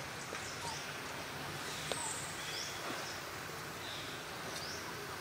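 Outdoor woodland ambience: a steady background hiss with scattered short, high bird chirps, and a brief click about two seconds in.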